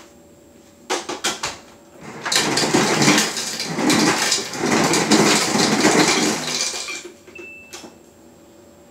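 Ice cubes clattering and rattling into a container for about five seconds, after a few clicks about a second in. A short high beep sounds near the end.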